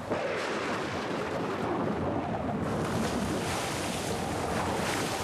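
Storm at sea: steady, loud wind and waves, cutting in suddenly.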